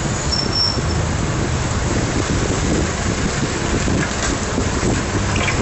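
Steady low rumble of traffic noise, with wind buffeting the microphone.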